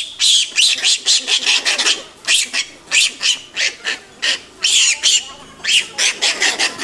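Japanese macaques screaming during a fight: a rapid run of short, shrill calls, about two to three a second, some rising and falling in pitch.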